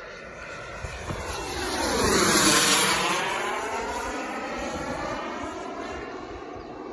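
Kingtech 100 turbine of a model Scorpion sports jet flying past overhead. The engine sound swells to its loudest about two and a half seconds in, sweeping in tone as the jet passes, then fades away.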